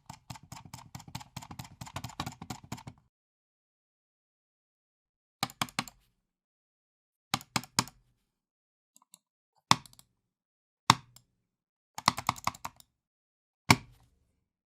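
A computer mouse clicked roughly and angrily. It opens with about three seconds of rapid, frantic clicking, then after a pause come short bursts of two or three clicks and single hard clicks.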